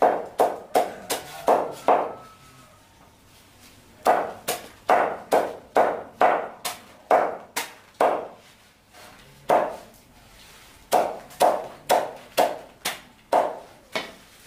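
Cleaver chopping a bundle of leafy greens against a wooden chopping block: a steady series of sharp chops about three a second, in runs broken by short pauses.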